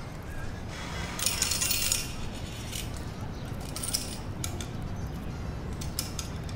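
Bill-changer machine dropping coins into its metal return cup: a jingling clatter about a second in, then a few sharp clinks as the coins are picked out, over a steady low hum.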